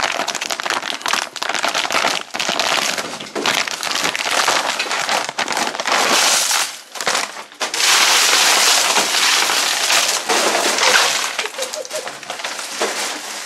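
Wrapped Chupa Chups lollipops being tipped out of their bag onto a heap of candy: a dense, continuous clatter and crinkle of plastic wrappers, with a short lull about seven seconds in.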